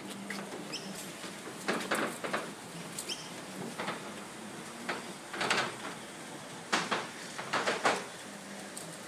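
Metal garage roller door rattling and scraping in a series of short bursts, loudest about two seconds in and again around seven to eight seconds in.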